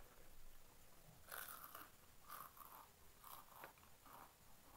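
Potato chips being bitten and chewed close to the microphone: a run of short, crisp crunches that begins a little over a second in.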